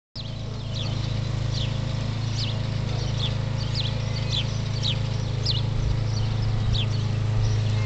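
Birds chirping in short, quick falling notes, repeated every half second or so, over a steady low hum.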